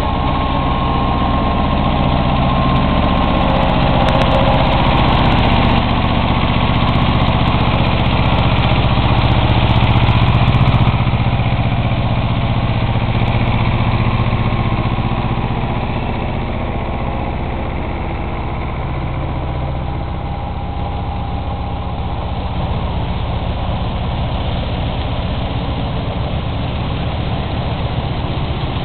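Farm tractor engine running steadily under load, driving an MSC-7B threshing machine by a long flat belt, with the thresher running along with it. The sound eases off somewhat about halfway through.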